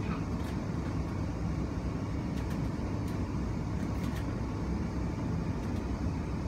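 Steady low rumble inside the carriage of an electric passenger train, with a few faint light clicks.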